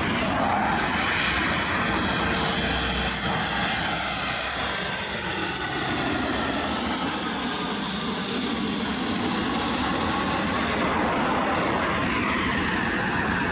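Boeing 757-200 jet airliner flying low overhead on landing approach with its gear down. Loud, steady jet engine noise carries a high whine whose pitch slides as the plane passes over, and the noise fades just after it has gone by.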